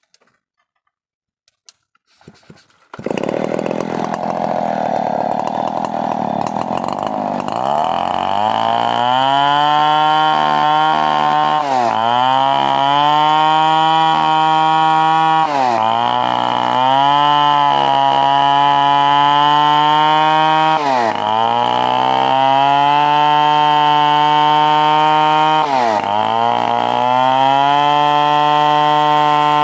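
Stihl 070 two-stroke chainsaw starting up about three seconds in, revving up over a few seconds and then running at high speed. Its engine speed dips briefly and recovers four times, every four to five seconds.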